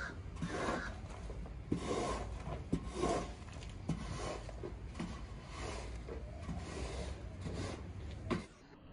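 A shovel scraper pushed over a wet, soap-foamed rug, scraping off the dirty water in repeated strokes about once a second, with a few sharp knocks as the blade sets down. The scraping stops abruptly near the end.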